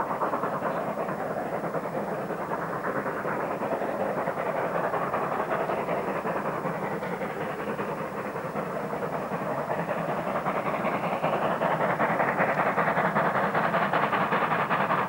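Steam locomotive exhaust beats from the chimney, its 'stack talk': a steady run of chuffs as it works a train, growing louder over the last few seconds.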